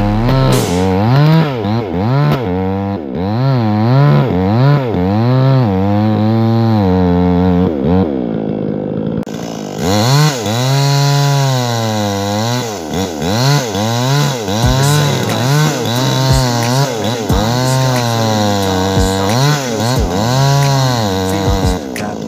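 Chainsaw cutting out a tree stump, its engine revving up and down about once a second as the throttle is worked. It eases off briefly about eight seconds in, then picks up again.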